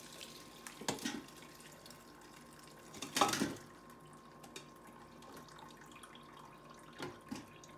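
Hot beef bone broth pouring and dripping through a metal mesh strainer as boiled bones and vegetables slide out of a stainless steel pot into it, with a louder splash and clunk about three seconds in and smaller ones near one second and near seven seconds.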